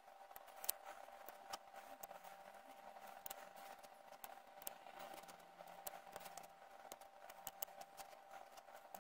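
Faint, scattered metallic clicks of a saw chain being pulled along its guide bar by hand, over a faint steady hum.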